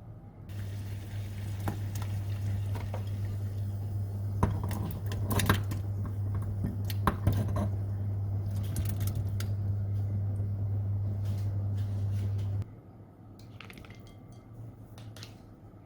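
Dishes and cutlery clinking and clattering several times, the loudest strikes around the middle, over a steady low electric hum from a kitchen appliance that switches on just after the start and cuts off sharply about three quarters of the way through.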